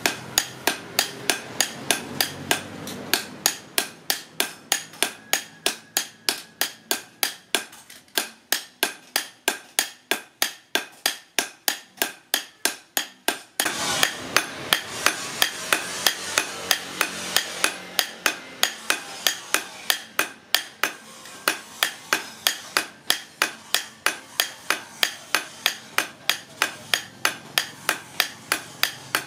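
Hand hammer striking a hot steel cleaver blade on an anvil, forging it in a steady rhythm of about three ringing blows a second. The hammering gets louder about halfway through.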